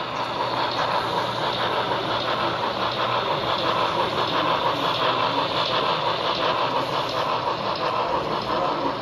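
Model steam locomotive running along the layout track close by: a steady, fast mechanical rattle.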